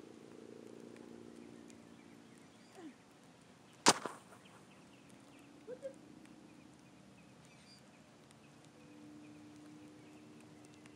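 A single sharp, loud smack about four seconds in as a kicked football strikes close to the ground-level microphone by the kick net, over faint outdoor background with a low hum.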